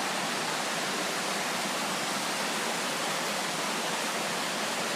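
Steady, even rush of a fast-flowing river, with no change in level.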